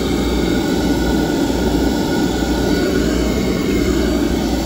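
Beckett AFII oil burner running steadily just after start-up, with its motor running and its flame lit, as an even rushing noise over a low hum. The flame has caught and is holding, now sensed by a newly replaced cad cell.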